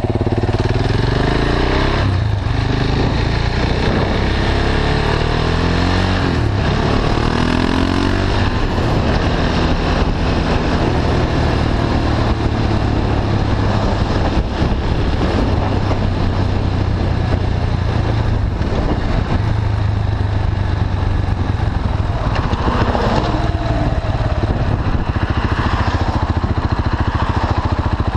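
KTM 690 Duke's single-cylinder engine running through an Akrapovic slip-on exhaust with the catalytic converter bypassed. It accelerates through the gears for the first several seconds, its pitch rising in repeated sweeps, then runs steadily at road speed, with its pitch changing again near the end.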